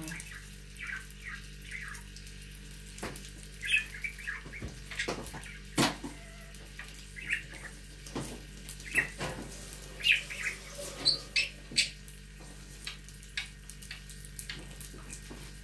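Caged pet birds chirping in short, scattered calls, over the faint steady sizzle of sausage and egg frying on an electric raclette grill, with a few sharp clicks.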